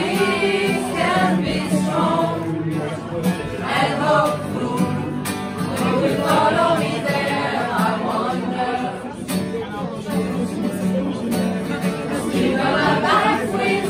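Amateur mixed choir, mostly women's voices, singing together in a small crowded room, with a steady low note held underneath the melody.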